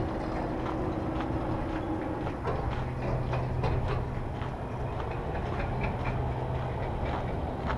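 Steady low mechanical hum, like an engine or machine running, with many scattered sharp clicks and clanks over it.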